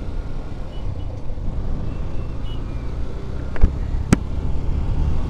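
Motorcycle engine running steadily while riding, a low even rumble with road and wind noise. Two sharp clicks about half a second apart come a little past halfway.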